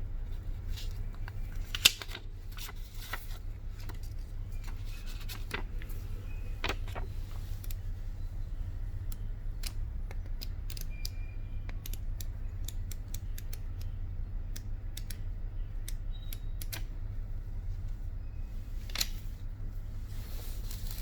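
Handling of an unboxed phone's accessories and paper manual: scattered small clicks, taps and paper rustles, with one sharp click about two seconds in, over a steady low hum.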